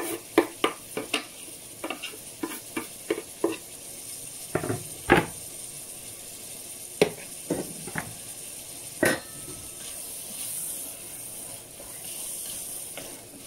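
A utensil stirring okra stew in a sizzling pan. It clicks and knocks against the pan rapidly for the first few seconds, then a handful more times up to about nine seconds in. After that only the steady sizzle remains.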